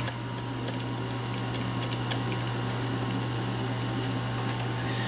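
A steady low hum, with a few faint light clicks of hands handling the A/C hose fitting at the compressor.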